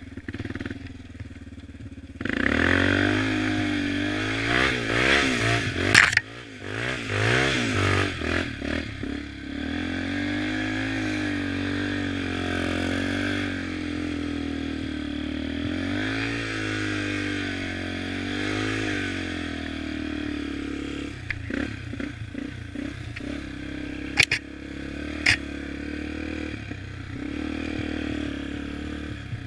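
Yamaha Raptor 350 quad's single-cylinder four-stroke engine riding through snow, throttled up about two seconds in and then revved up and down repeatedly as the throttle is worked. It settles to a steadier, lower run after about twenty seconds, with sharp knocks about six seconds in and twice near the end.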